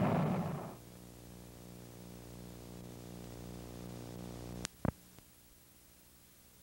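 A loud rushing sound fades out within the first second, leaving a steady electrical hum from the VHS recording over a black screen. About 4.7 seconds in, a quick pair of clicks cuts the hum off as the tape recording ends and the VCR switches to its blue screen, leaving faint hiss.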